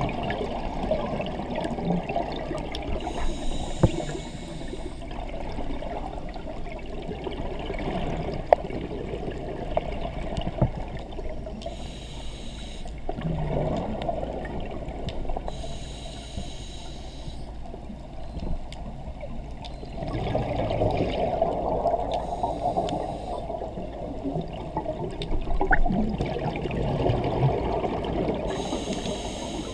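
Scuba diver breathing through a regulator underwater: slow breaths, each a short hiss on the inhale and a longer bubbling rumble as the exhaled air escapes.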